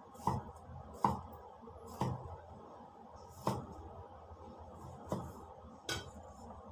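Kitchen knife chopping an angled luffa into chunks on a wooden cutting board: six sharp knocks of the blade striking the board, unevenly spaced.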